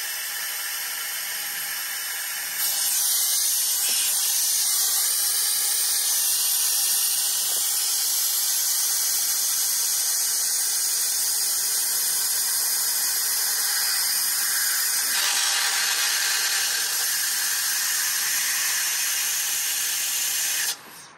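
Compressed shop air hissing through an AirLift venturi coolant refiller as it draws a vacuum on the engine's cooling system. The steady, high hiss grows louder a few seconds in and cuts off abruptly near the end.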